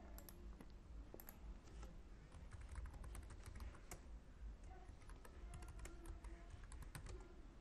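Faint typing on a computer keyboard: a run of quick, irregular key clicks.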